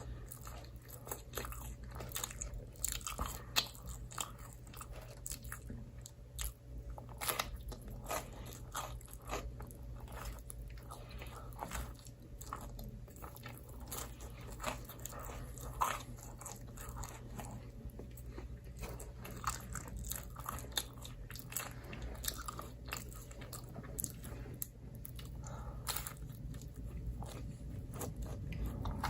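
Close-miked eating of microwaved pizza: irregular crunchy bites and chewing, with many sharp crisp clicks, over a steady low hum.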